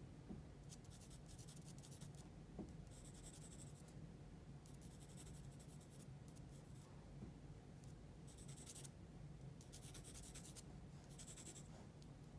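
Faint scratching of a graphite pencil drawing on paper: about seven short runs of quick strokes, with pauses between them, over a low steady room hum.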